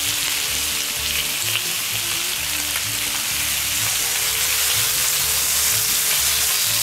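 Bacon strips sizzling steadily on a hot fire-plate griddle over a wood fire, as tongs turn them. Soft background music with a regular bass pattern runs underneath.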